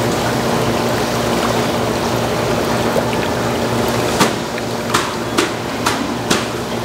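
Aerated live-squid tank: water bubbling and churning steadily over a low pump hum. About four seconds in, five short sharp knocks follow one another about half a second apart.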